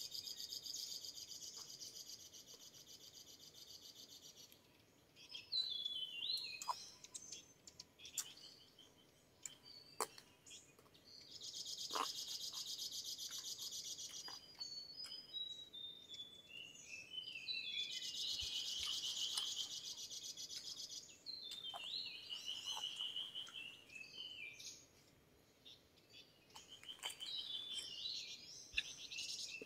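Tropical forest ambience: an insect drones in high, fast-pulsing spells of a few seconds, three times, and birds sing short phrases of stepping, falling notes in the gaps. A few sharp clicks stand out.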